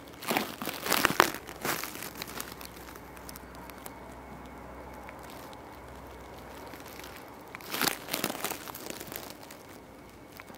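Crackling, crumpling rustle of a camcorder being moved close through grass and dry leaves, in two bursts: one starting just after the start and lasting under two seconds, another about eight seconds in. Between them only a faint steady hiss.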